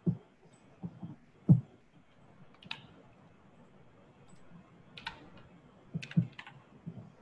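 Scattered clicks of a computer keyboard and mouse being worked: a few dull knocks in the first second and a half, then several sharper single clicks spaced a second or more apart.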